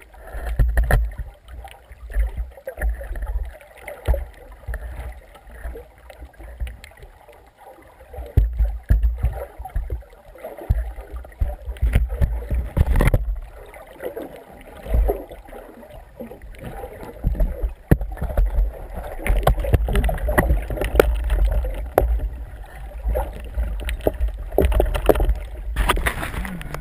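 Sea water sloshing and gurgling around a speargun-mounted camera held just under the surface, with a low rumble and irregular splashes and knocks.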